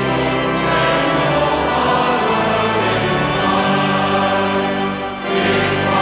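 A choir singing held chords with accompaniment, with a short drop in level about five seconds in before the singing resumes.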